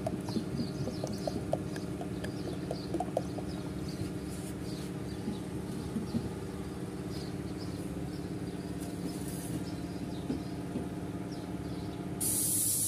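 An engine idling steadily, a hum with a few faint ticks over it. Near the end a loud hiss starts suddenly.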